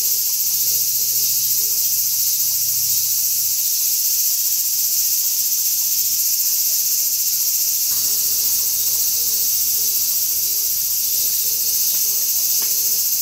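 Dense chorus of insects singing steadily, a constant high-pitched shrill with no breaks.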